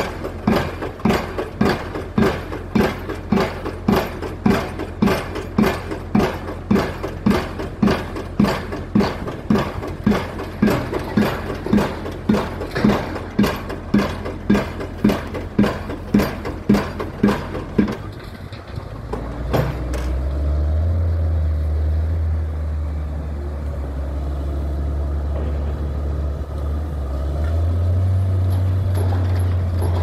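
Pile-driving drop hammer striking a precast concrete pile in a steady rhythm, a little under two blows a second, until the blows stop about two-thirds of the way in. After that the piling rig's engine runs steadily, rising in level near the end.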